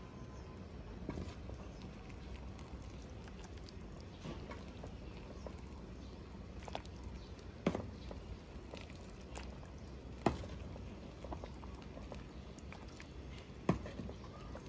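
Metal ladle serving soup into a ceramic bowl: soft handling noise with three sharp clinks, about midway, a few seconds later and again near the end.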